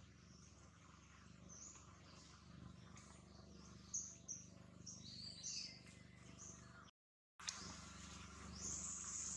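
Faint, high-pitched animal chirps and squeaks, several short ones and one squeal that falls in pitch about five seconds in. The sound cuts out completely for a moment near the end.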